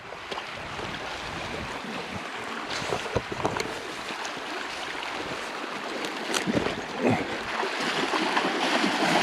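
Steady rush of river water, slowly getting louder, with a few short knocks and splashes.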